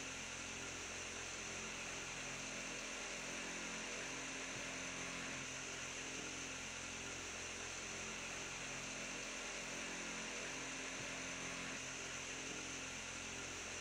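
Steady electrical mains hum with a constant hiss underneath, unchanging throughout.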